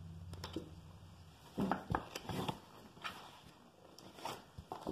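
Pages of a large paperback picture book being turned and handled: a few soft paper rustles and small taps, loudest about two seconds in.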